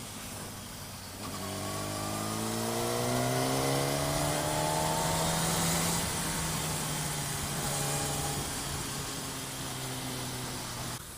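A vehicle engine speeding up: its pitch climbs steadily for about four seconds, then holds, with a short second climb about eight seconds in.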